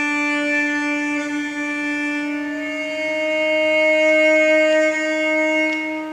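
Music accompanying the performance: slow, long held notes that change pitch only a few times, with no beat.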